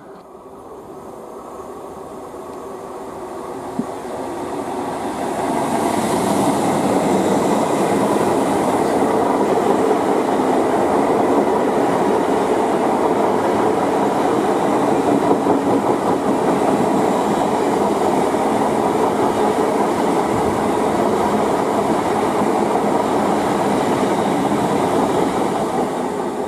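A Great Western Railway Intercity Express Train (Class 800/802) passing close by: its rumble and wheel noise build over the first five seconds or so, hold steady and loud, then begin to fade near the end.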